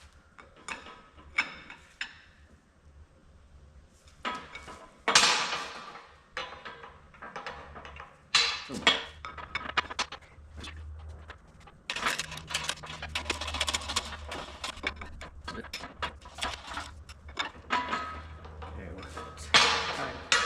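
Metal parts of a Unimog CV joint clinking, knocking and rattling as they are handled and fitted together by hand, in irregular clusters that grow busier about halfway through, over a steady low hum.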